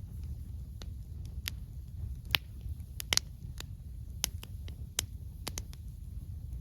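Wood fire crackling: irregular sharp pops and snaps from the burning logs, the loudest a little over two and three seconds in, over a low steady rumble.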